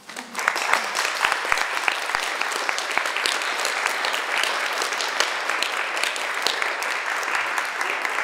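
Audience applauding, the clapping starting about half a second in and holding steady.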